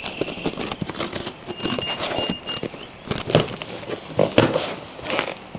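Cardboard box and packing being opened and handled by hand: irregular rustling, crinkling and scattered knocks.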